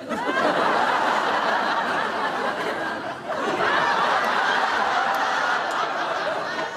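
Studio audience laughing: a burst of laughter that starts suddenly, dips briefly about three seconds in, then swells again.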